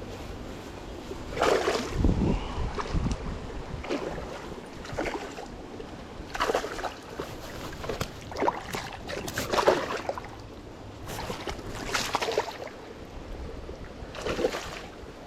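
Moving water at a small creek spillway, a steady rush broken by a dozen or so short, irregular splashy bursts, with a low thump about two seconds in.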